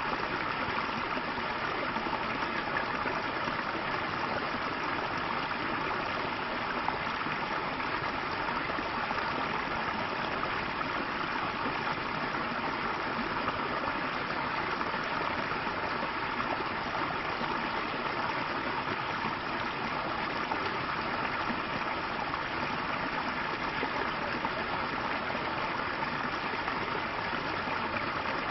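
Small stream flowing steadily over rocks: a continuous, even rush and babble of water.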